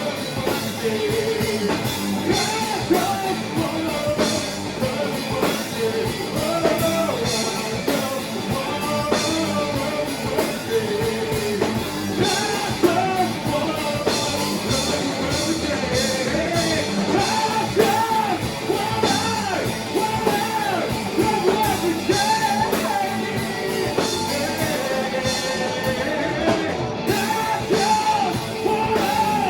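Rock band playing a song, with a singer's melody over guitar and steady drums.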